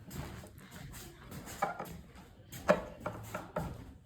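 Irregular sharp taps and knocks of tools and metal hardware against wooden woodwork as hardware is being fitted, the loudest knock about two and a half seconds in.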